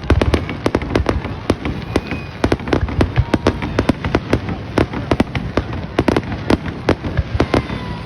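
Fireworks going off in rapid succession: many sharp pops and bangs, several a second and irregular, over a constant low rumble.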